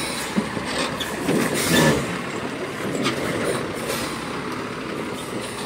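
Cargo truck crawling over a rough, rutted dirt road: its diesel engine running under load, with scattered creaks, knocks and rattles from the body and suspension as it lurches through the ruts.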